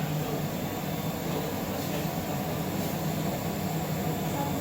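Steady low mechanical hum with air noise from laboratory equipment running, with no distinct clicks or changes.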